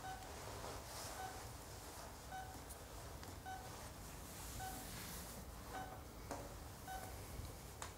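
Hospital patient monitor beeping faintly and steadily, one short high beep about once a second, marking the patient's heartbeat. A few faint clicks and rustles come near the end.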